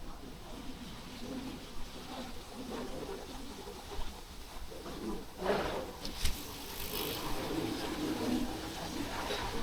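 Noises from a storage yard: scattered knocks and clatter over a low rumble, with a sharp bang just after six seconds in.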